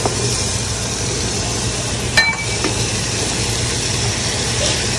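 Hot masala in a pot sizzling steadily as canned chickpeas are tipped into it, over a steady low hum. One sharp, ringing clink about two seconds in.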